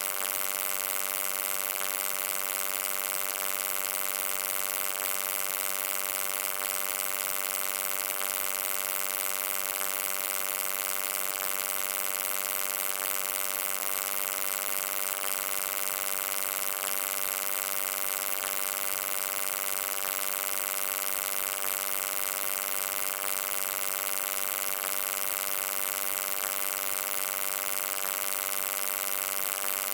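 Steady electric hum: a buzzing drone with many evenly spaced overtones over a bright hiss, unchanging throughout.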